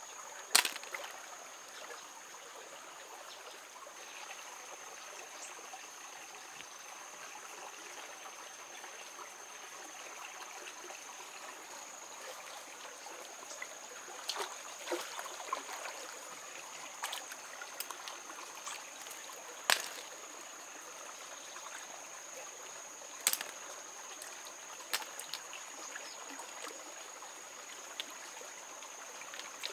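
Shallow rocky stream trickling steadily, with scattered sharp clicks and knocks from stream snails being picked out by hand and dropped into a wicker basket.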